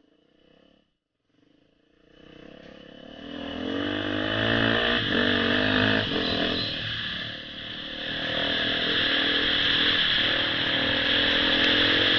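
Beta 480RR four-stroke single-cylinder dirt bike engine running under way on a trail. It fades in about two seconds in and settles into a steady run, its pitch rising and falling with the throttle around the middle, with a steady hiss above it.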